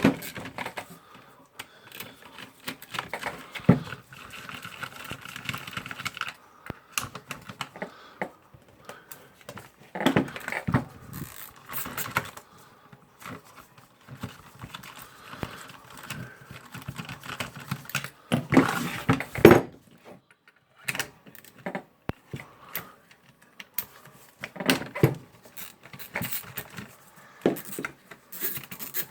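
Metal tools and small parts clinking, knocking and rattling in irregular bursts as they are handled on a workbench, with two busier bouts of clatter partway through.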